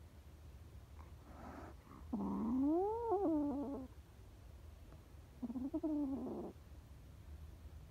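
An orange-and-white kitten meowing twice: a long meow about two seconds in that rises and then falls in pitch, and a shorter meow about five and a half seconds in.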